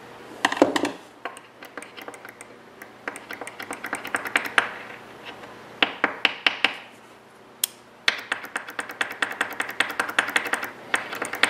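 Small metal parts clicking and tapping as a spring-loaded Allen-key bed probe is handled and adjusted. The clicks come in clusters, with a fast run of rapid clicks near the end.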